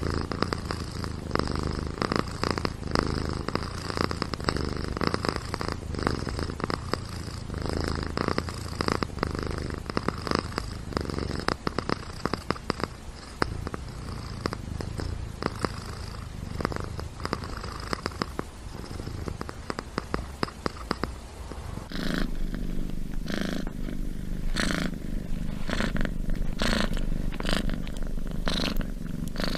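Domestic cat purring steadily, close up. About 22 seconds in, it switches abruptly to a different purr with a different tone and more widely spaced pulses.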